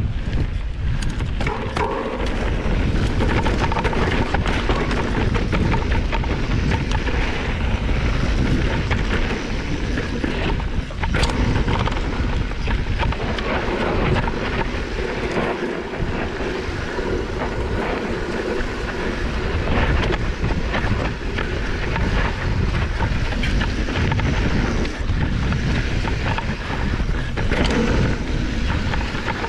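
Wind rumbling over the camera microphone of a mountain bike riding down a dirt trail, steady and loud, with the bike clattering over rough ground throughout.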